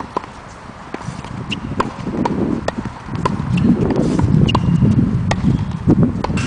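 Tennis ball pops off a racket and bounces on a hard court, a series of sharp clicks about every half second. A low rumble runs under the clicks from about two seconds in.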